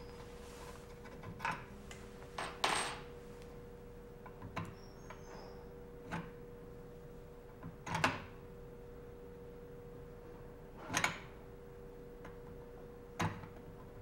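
Metal hinge pin being worked out of the top hinge of a model door by hand: a scattering of short, light metallic clicks and knocks a second or more apart, over a steady hum.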